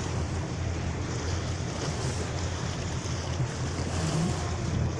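Small harbour launch under way: its engine running with a steady low drone, water rushing along the hull, and wind buffeting the microphone.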